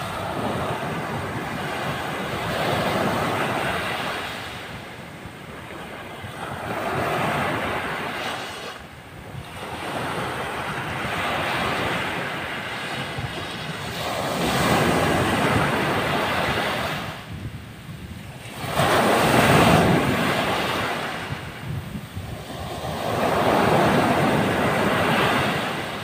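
Ocean surf: waves breaking and washing up the shore in swells about every four seconds, each rising to a loud rush and falling back, the loudest a little past the middle.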